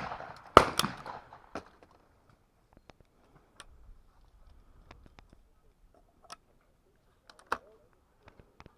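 A single shotgun shot about half a second in, the second shot at a pair of clay targets, fading away after it. A few faint clicks and knocks follow.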